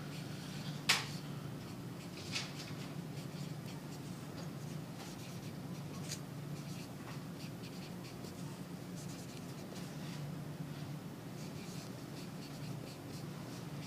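Stylus writing on a tablet screen: faint scratching with light taps, a sharp click about a second in and a smaller one a moment later, over a steady low hum.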